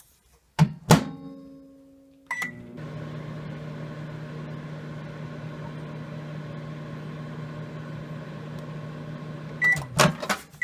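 Microwave oven: two clunks and a short keypad beep, then the oven runs with a steady hum for about seven seconds before another short beep and a few clunks near the end.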